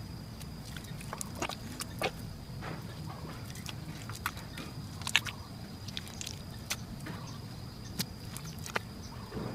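Hands slapping and pressing wet mud around the rim of a buried glazed clay jar: irregular wet slaps and squelches, with one sharp click about halfway through.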